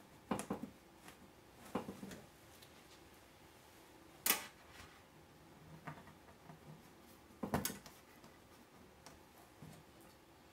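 Shelf brackets being pushed into their holes inside a SteakAger dry-aging cabinet, with hands knocking against its walls: scattered clicks and knocks in about four clusters, the sharpest about four seconds in.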